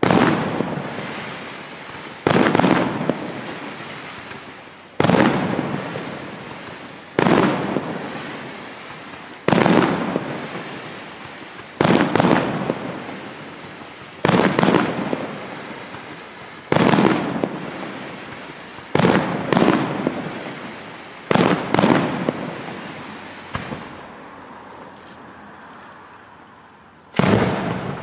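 Aerial firework shells bursting one after another, a sharp bang every two seconds or so, each trailing off in a rolling echo. A few come in quick pairs, and there is a longer pause near the end before one more bang.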